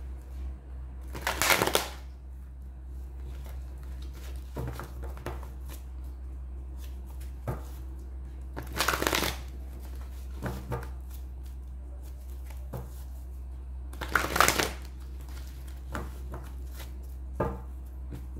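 A deck of tarot cards being shuffled by hand over a cloth-covered table: three short, loud bursts of shuffling, about a second in, near the middle and about three-quarters through, with softer taps and slides of the cards in between. A steady low hum runs underneath.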